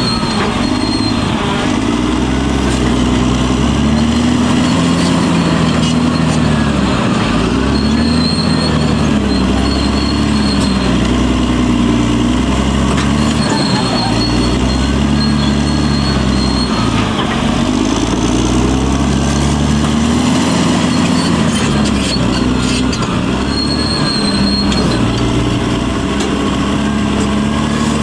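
Caterpillar D6R bulldozer's diesel engine working under load, its pitch repeatedly rising and falling every few seconds as the blade digs in and the machine moves. A thin high whine comes and goes several times over the engine.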